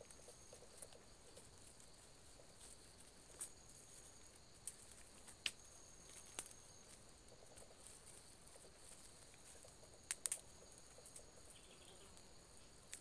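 Quiet bamboo-forest ambience: a faint insect buzz coming and going, with a few sharp crackles of dry leaves and twigs underfoot in the leaf litter, the loudest pair about ten seconds in.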